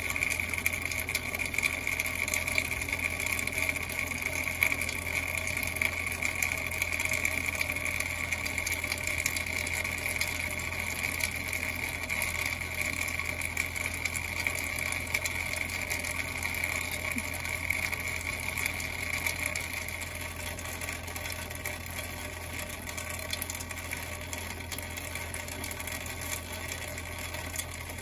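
Steady rain falling, heard as a fine patter, under a steady high-pitched buzz that fades out about twenty seconds in and a low hum.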